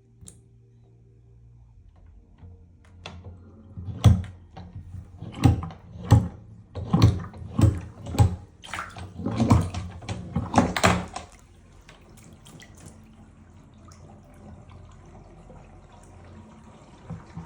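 Water splashing and sloshing in a series of irregular bursts over several seconds, then a quieter, steady wash of noise.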